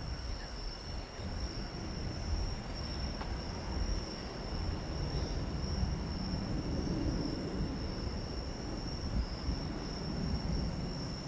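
A steady high-pitched trill of night insects runs unbroken over a low, even rumble.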